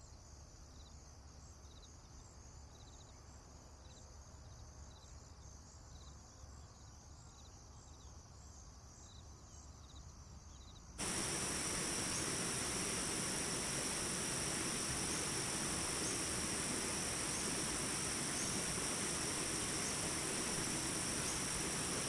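Insects chirping faintly with a regular pulse, then about halfway through a loud, steady rush of water cuts in abruptly and carries on, the insect chirping still audible over it.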